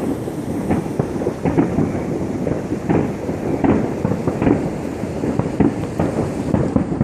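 Many fireworks going off at once: a dense, continuous rumble of bangs and cracks at irregular intervals.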